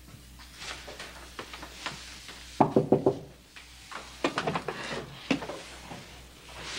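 Knocking on a wooden door: a short series of raps a little under three seconds in, then a second series about a second and a half later.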